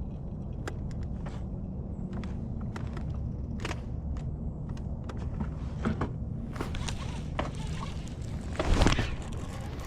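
Scattered light clicks and knocks of handling gear in a small aluminium jon boat over a steady low rumble, with a louder brief scrape or rustle near the end.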